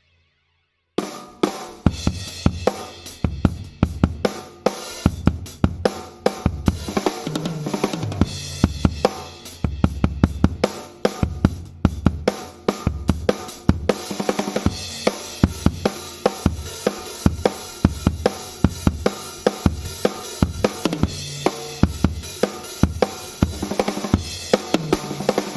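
Drum kit played through a Yamaha EAD10 drum module: a busy groove of kick drum, snare, hi-hat and cymbals that starts suddenly about a second in.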